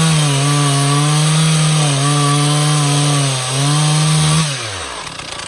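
Stihl MS291 two-stroke chainsaw running at high revs while cutting, its pitch dipping briefly about two and three and a half seconds in. Near the end the engine note falls and winds down until it dies, typical of this saw, which won't stay running unless it's on the gas and needs servicing.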